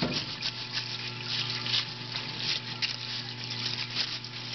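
Parts-washer pump humming steadily as mineral spirits run, with a brush scrubbing in quick irregular strokes on an AR-15 upper receiver.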